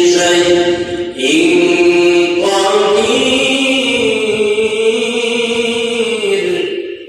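A solo male voice chanting Quran recitation in a melodic style, with long held, ornamented notes. There are short breaths about one and two and a half seconds in, the line climbs in pitch about three seconds in, and the voice falls away just before the end.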